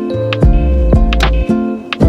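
Background music with a steady beat: a deep held bass, sustained pitched notes and sharp percussive hits about twice a second.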